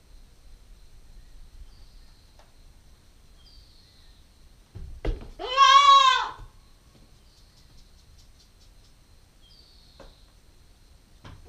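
A nine-week-old Nubian goat kid gives one loud bleat about five seconds in, lasting about a second and a half, its pitch rising and then falling.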